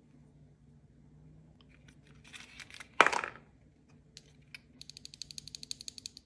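Keyboard packaging being handled: paper and plastic rustling, then one sharp loud knock about three seconds in, followed near the end by a fast, even run of clicks, about ten a second.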